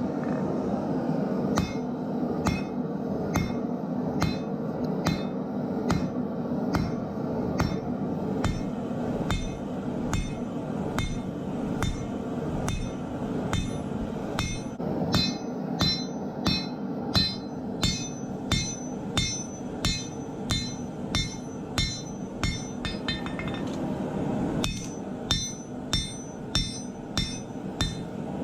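Hand hammer striking leaf spring steel on an anvil while forging a cleaver blade, a steady run of ringing blows at about one and a half a second, over a steady rushing noise.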